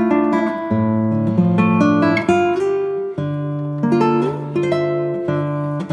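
Background instrumental music: plucked-string notes picked over low bass notes that change every few seconds.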